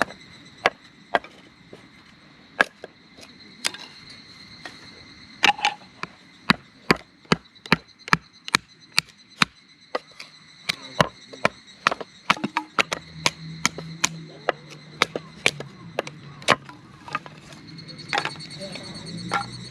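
Repeated sharp strikes: a few scattered knocks, then a long run of hits at about two to three a second that stops near the end, over a steady chirring of insects. A low hum comes in during the second half.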